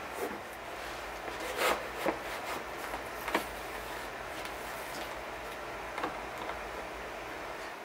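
Light handling sounds of a wooden jig and a leather sheet being laid down and positioned on a cutting mat: a few scattered short knocks and scuffs, the sharpest around two and three seconds in.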